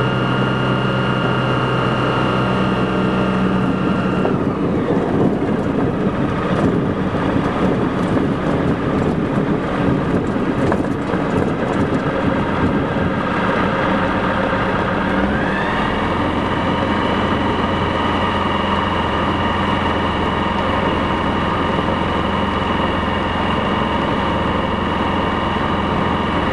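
Rotax 912 flat-four engine of a BushCaddy R-80 floatplane running steadily, heard from inside the cockpit. About four seconds in, the even drone gives way to a rougher, noisier stretch. About fifteen seconds in, the pitch rises and settles into a steady drone again.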